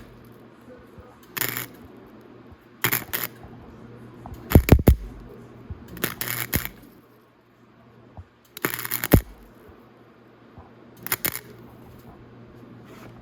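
Short bursts of arc welding on a broken motorcycle muffler: about six brief tack welds a second or two apart, laid down to fill small holes in the muffler, over a steady low hum.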